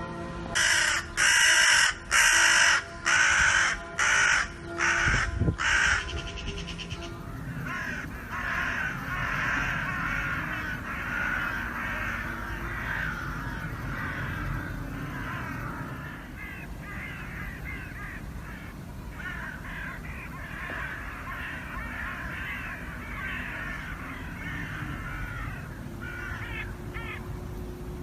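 A crow cawing loudly about seven times in quick succession, then a flock of crows calling over one another in a continuous, overlapping chatter.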